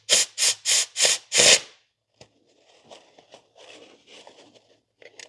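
Five short hissing blasts from a compressed-air blow gun in the first two seconds, the last one longest, blowing metal shavings out of a freshly tapped bolt hole in an aluminium cylinder head. Softer rubbing and rustling of paper shop towels follows.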